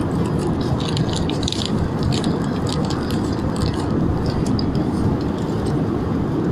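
Steady airliner cabin drone, a dense low rushing noise at an even level, with small light clicks and rattles through roughly the first half.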